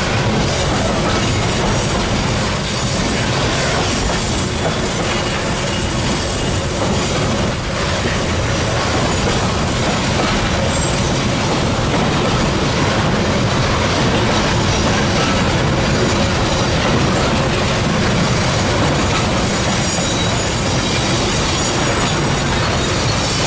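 Freight train wagons rolling past close by, container flatcars and then hopper cars: a steady noise of steel wheels on rail with clatter over the rail joints and occasional high wheel squeal.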